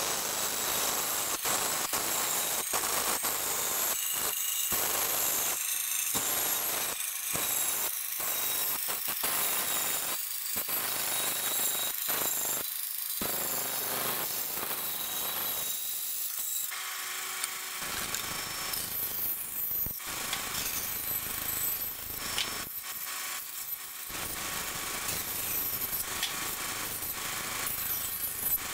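Large bandsaw running, its blade cutting a curved outline through a thick wooden board; the cutting noise dips and returns again and again as the piece is steered through the curves.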